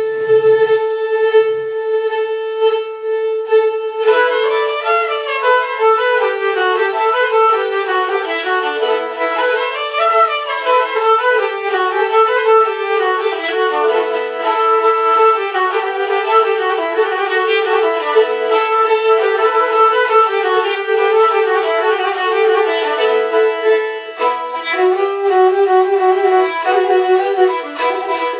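Two Pontic lyras (kemençe) bowed together in Pontic folk style: a steady held note opens, and about four seconds in a quick, ornamented melody joins above a continuous drone.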